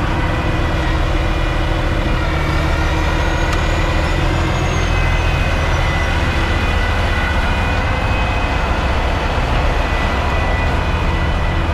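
Heavy tow truck's diesel engine running steadily close by, with a faint high whistle rising and falling a few seconds in.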